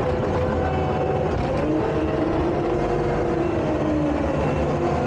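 Diesel engine of a Takeuchi tracked skid steer running steadily while working dirt, with a low rumble under a whine that drifts slightly up and down in pitch.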